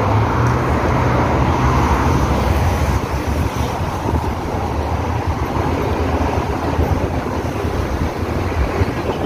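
Steady road traffic noise from a busy multi-lane road, a continuous low rumble of passing vehicles.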